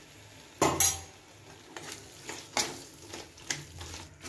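Long metal spoon stirring and scraping thick chicken masala in a large aluminium pot, clinking against the pot's side as yogurt is mixed in. A series of scrapes and clatters, the loudest a double clatter a little over half a second in.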